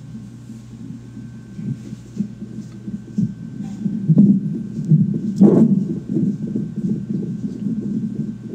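An unborn baby's heartbeat picked up by a fetal heart monitor: a fast, repeated pulsing.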